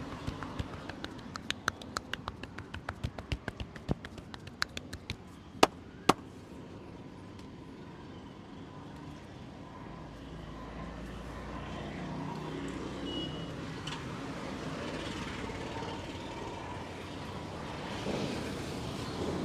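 Hands tapping and slapping quickly on the body during a percussive massage, several strokes a second, ending in two louder sharp slaps about six seconds in. Steady street traffic noise fills the rest.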